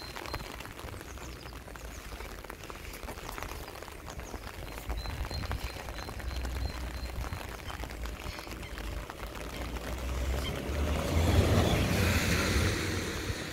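Rain falling around a walker, with wind buffeting the microphone as a low rumble. The noise swells to a louder rush about eleven seconds in, then eases.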